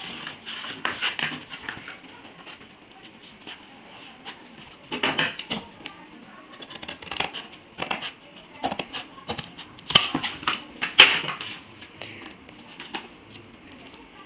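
Large scissors cutting corrugated cardboard in a series of short cuts, loudest about five seconds in and again about ten to eleven seconds in, with rustling and light taps of the cardboard being handled.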